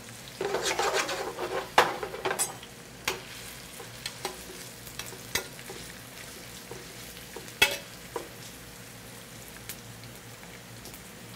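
Chopped onion frying in hot oil in a skillet, sizzling steadily, while it is stirred with a utensil. The utensil scrapes through the onion over the first couple of seconds and knocks sharply against the pan a few times, the loudest knocks about two seconds in and near eight seconds.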